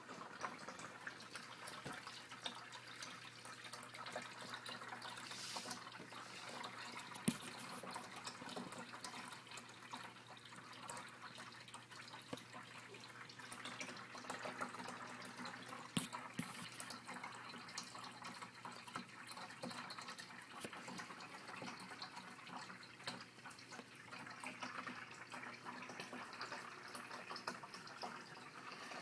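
Aquarium water trickling and splashing steadily at the surface, over a steady low hum, with a sharp click twice.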